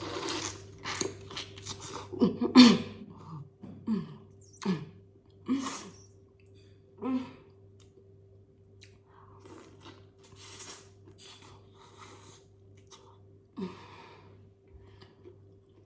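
A person eating close to the microphone, biting and chewing corn from a seafood boil. Irregular wet smacks and crunches come thickest in the first half and thin out later, with a few short low hums between bites. A steady low electrical hum lies under it all.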